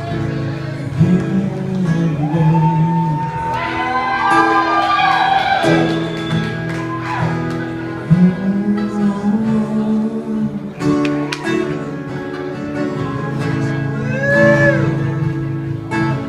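Live music from a small band: guitars playing sustained chords under melody lines that slide and bend between notes, with some wordless singing.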